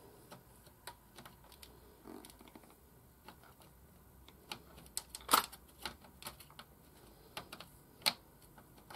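Faint, scattered clicks and scratches of a metal tool tip picking at a blob stuck on a computer keyboard's circuit board, with two sharper clicks about five and eight seconds in.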